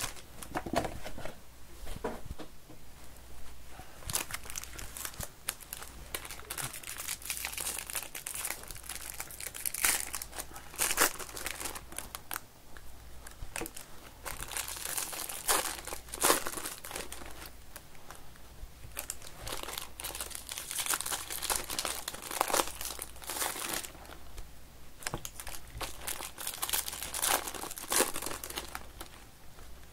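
Foil Topps baseball card pack wrappers crinkling and tearing as packs are handled and ripped open, in irregular rustles throughout.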